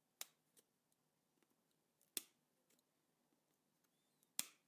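Wire cutters snipping the thread that binds the feathers of a Yonex AS-40 feather shuttlecock. There are three sharp snips about two seconds apart, with a fainter click soon after the first.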